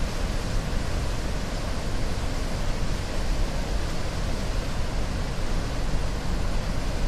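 Aharbal waterfall, a large cascade dropping into a plunge pool in a rocky gorge: a steady, unbroken rush of falling and churning water.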